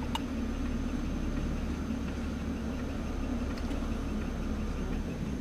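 Vehicle engine idling steadily, a low even hum, with one brief click just at the start.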